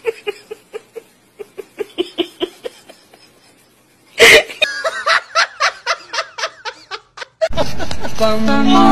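A person laughing in quick giggles, softer at first, then a sudden loud cry about four seconds in that breaks into hard, rapid laughter. Near the end it gives way to a steady rushing noise with tones over it.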